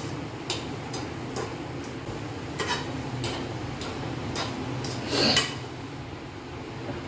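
Perforated steel ladle scraping and knocking against a steel kadhai as a grated-coconut, sugar and milk mixture is stirred over the flame and cooked dry for coconut laddoos. Short scrapes come about every half second, with a longer, louder scrape about five seconds in, over a steady low hum.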